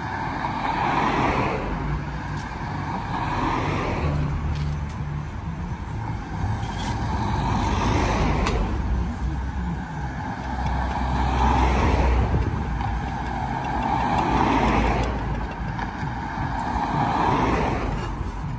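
Road traffic: cars passing one after another, each swelling and fading, over a low engine rumble.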